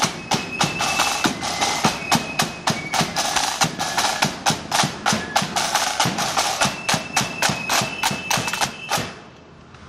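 Marching band side drums playing a fast marching beat, with a few long high notes held over the drumming. The drumming stops abruptly about a second before the end.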